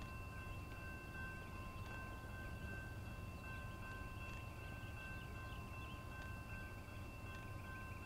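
Faint outdoor ambience: several steady high-pitched tones that hold unbroken, with scattered small chirps, over a low steady rumble.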